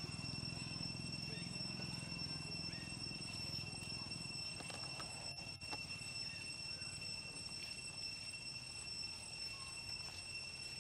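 Forest ambience: insects keeping up a steady high-pitched drone at a few fixed pitches over a low hum, with a short drop-out about halfway through.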